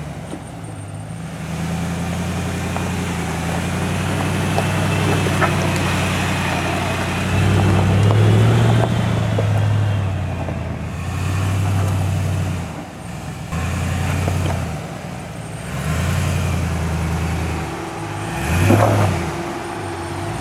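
Off-road 4x4 truck engine revving on and off again and again as it works at a slippery muddy climb. The throttle swells hardest about eight seconds in and again near the end.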